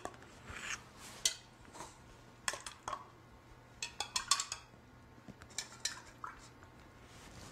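A stirrer clinking and tapping against small cups of water as they are stirred one after another, mixing in pH indicator drops; scattered short clicks with quiet gaps between.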